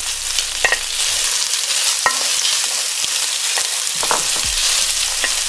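Thinly sliced beef and chopped garlic sizzling in smoking-hot oil in a wok, the hiss growing louder about a second in. A wooden spatula knocks and scrapes against the wok a few times as the beef is stirred.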